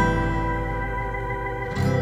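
Background instrumental music: held guitar-like notes ringing, with a new chord struck near the end.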